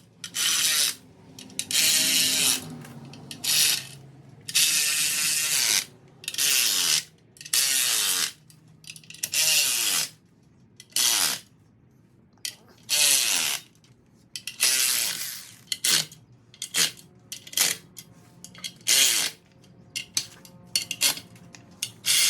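Hand ratchet wrench snugging down the clutch pressure-plate bolts: repeated bursts of ratchet clicking, one per swing of the handle. The bursts come shorter and quicker in the second half.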